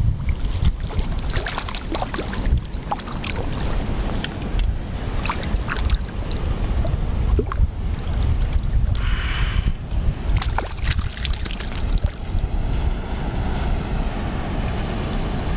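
Wind noise on the camera microphone, a steady low rumble, with scattered sharp clicks and ticks.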